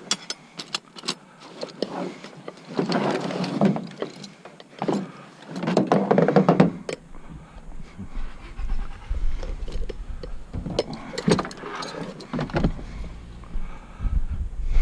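Handling noises: a run of sharp clicks and knocks with two spells of scraping about 3 and 6 seconds in, as tools and curbside scrap are moved, with a low wind rumble on the microphone in the second half.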